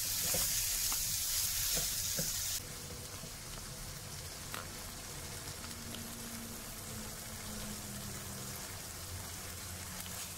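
Prawns in onion-tomato masala sizzling in a frying pan while being stirred with a wooden spatula, with a few light knocks of the spatula. The sizzle is loud at first, then drops suddenly to a quieter level about two and a half seconds in.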